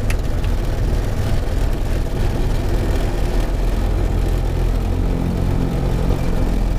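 Hi-Max ultralight's engine running at idle with the throttle closed during the landing rollout, heard from inside the cockpit as a steady low hum under a wash of noise.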